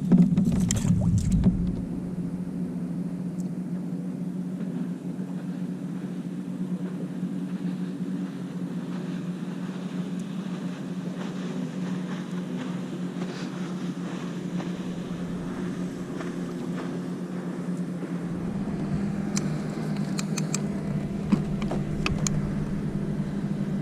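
Steady low motor hum holding one pitch throughout, with a few light clicks near the end.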